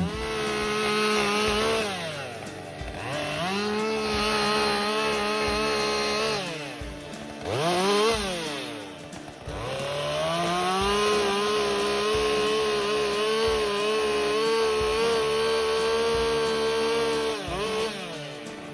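Chainsaw running at full throttle as it cuts a tree trunk, easing off briefly twice with a quick rev between. It then holds one long steady cut and drops back near the end.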